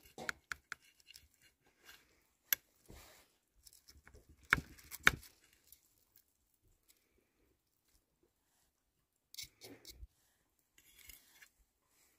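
Scattered sharp clicks and knocks with brief scraping between them. The two loudest knocks come about half a second apart near the middle, and another cluster of clicks comes near the end.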